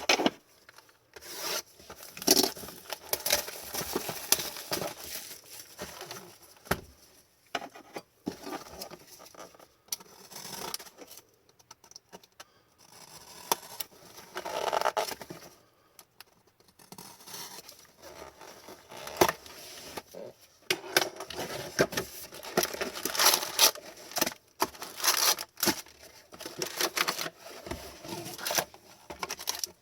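A sealed hockey-card hobby box being torn open and its wrapping and cardboard handled: tearing, crinkling and scraping in irregular bursts, with short pauses.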